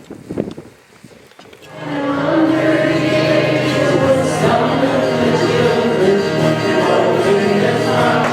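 Music with voices singing starts about two seconds in and carries on steadily, a hymn-like piece with sustained chords under the voices. Before it there is only a faint low rumble, like wind on the microphone.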